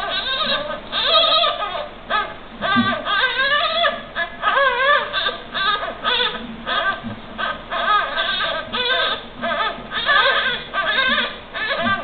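Newborn Iberian lynx kits mewing: a run of short, high, wavering cries, one after another with only brief gaps.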